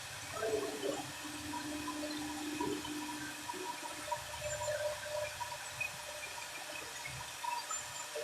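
Large CNC wood router running: a steady rushing noise with faint whining tones that come and go.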